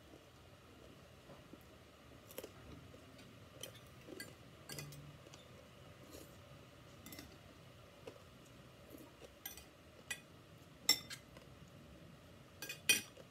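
Metal spoon and fork clinking and scraping against a plate and a glass bowl while eating: scattered light clicks, the two loudest near the end.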